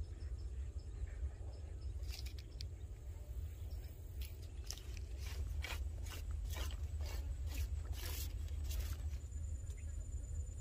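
Close handling noise from hands baiting a hook and gripping a fishing rod right by the microphone: a run of short clicks and scrapes between about two and nine seconds in, over a steady low rumble.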